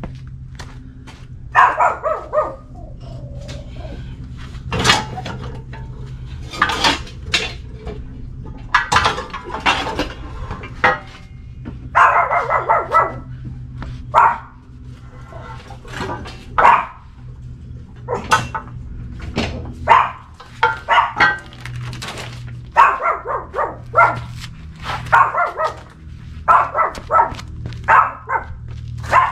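Small pet dogs barking again and again in short bursts, over a steady low hum.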